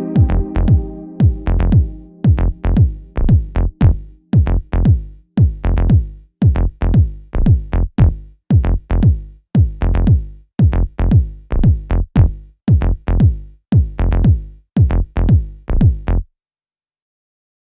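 Electronic music from a drum machine: deep kick-drum hits that drop in pitch, about two a second. Held synth chords die away in the first couple of seconds, leaving the beat alone until it stops suddenly near the end.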